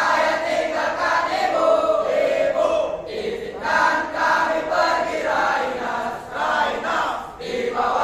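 A group of Pramuka scouts chanting and singing their yel-yel, a scout group cheer, in unison, with short breaks between phrases.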